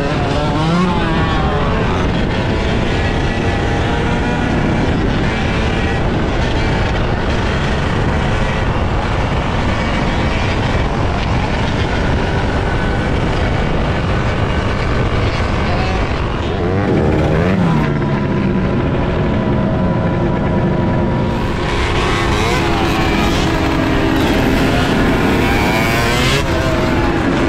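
Dirt bike engines running and revving in a group ride, their pitch rising and falling several times, with the clearest revs about a third of the way in, around two-thirds of the way through and near the end. Wind rushes on the microphone throughout.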